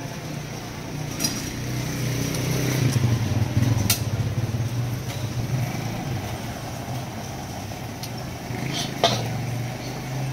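Gas wok burner running with a low, steady roar, loudest a few seconds in. A few sharp metal clinks, the loudest near the end.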